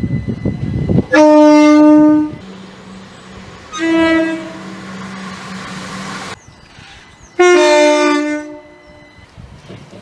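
Three train horn blasts from different British multiple units, joined by edits: a long single-note blast about a second in, a shorter blast about four seconds in over a diesel unit's steady engine hum, and a two-tone blast near the end.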